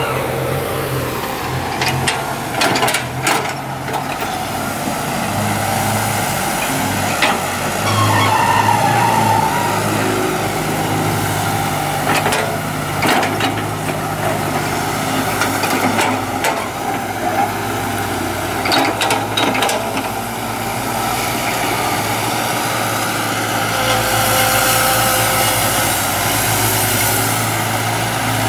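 Kobelco hydraulic excavator's diesel engine running steadily under load while it digs, with repeated clanks and knocks from the bucket and tracks and a hiss near the end. At the start a loaded six-wheel dump truck pulls away, its engine note falling.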